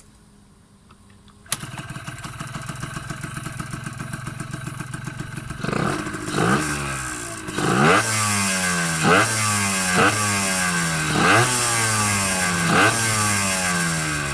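Yamaha DT50 (17W) 50 cc two-stroke single, running through an RSV silencer with a big Mikuni VM20 carburettor, starts suddenly about a second and a half in and idles. From a few seconds later it is revved in a run of about seven quick throttle blips, the pitch jumping up and sliding back toward idle each time.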